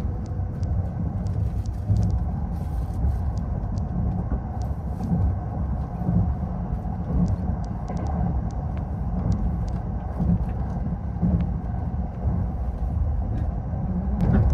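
Running noise of the limited express Azusa: a steady low rumble from the moving train, with faint irregular clicks over it.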